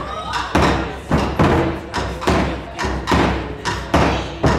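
Taiko drums beaten with wooden sticks in a steady rhythm of about two strong beats a second, each beat ringing on into the next.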